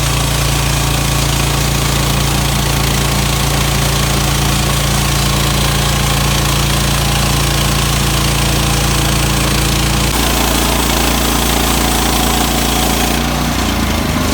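Small gasoline engine of a Woodland Mills portable sawmill running steadily. Its note changes about ten seconds in and again just before the end, then the sound cuts off abruptly.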